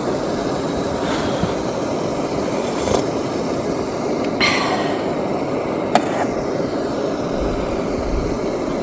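Steady rain on a tent and tarp, with a few sharper taps about three, four and a half and six seconds in.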